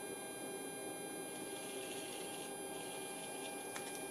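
Steady electrical hum of several constant tones from the energised indicator test bench, with a faint rustle about a second in and a small click near the end as the zero trimmer is turned.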